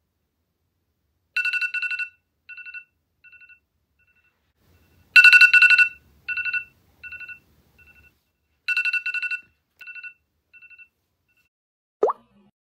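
iPhone alarm ringing: three rounds of rapid high beeps about three and a half seconds apart, each loud at first and trailing off in fainter repeats. A brief sliding tone near the end.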